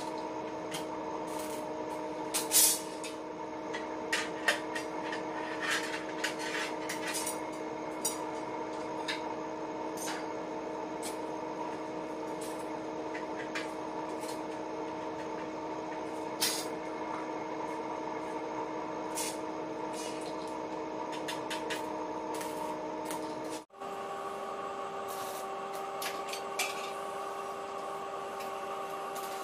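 Steady workshop machine hum of several fixed tones, with scattered sharp metallic clinks and taps as steel bars are handled and laid into a grille jig. After a brief dropout about 24 s in, the hum continues on a different set of tones.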